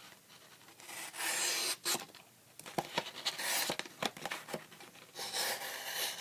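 Small blade of a Victorinox SD Classic slicing through a sheet of paper in a sharpness test: three dry, rasping cuts, with small clicks from handling in between.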